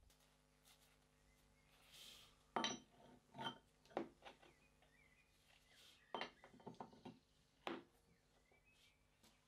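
A handful of light metallic clinks and taps, spread over several seconds, as polished steel guide rods are set into the painted metal frame of an antique potato chip cutter, over near-silent room tone.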